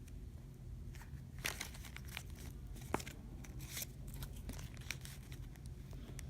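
Faint, irregular crinkling and small clicks over a low room hum.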